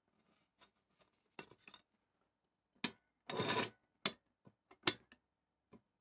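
Faint, sharp metal clinks, about five of them, with a brief scrape a little past the middle, as a steel washer is fitted and the main screw of a Record No. 23 quick-release vice is slid fully home.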